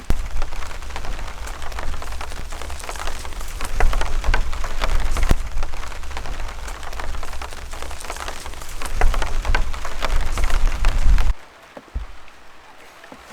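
Steady rain with many close, sharp drop hits and a low rumble underneath. It cuts off suddenly about eleven seconds in.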